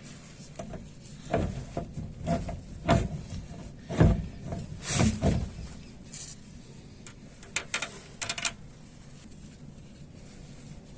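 Irregular metal clunks and knocks from a GAZelle rear-axle final drive as its pinion flange is turned back and forth by hand, taking up the drive's free play, with a few sharp clicks near the end. The play is about 10 mm, which may lie in the half-shafts rather than the final drive itself.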